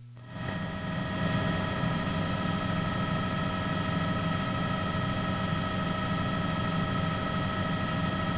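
A steady engine drone with several high whining tones over it, swelling in within the first second and then holding level.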